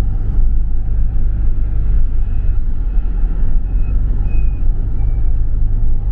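Steady low rumble of a car driving along a highway, heard from inside the cabin. Five short, faint beeps come between about two and five seconds in.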